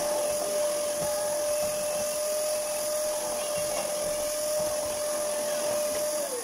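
Canister vacuum cleaner running with a steady whine and airflow hiss. Near the end it is switched off and the whine begins to fall in pitch as the motor spins down.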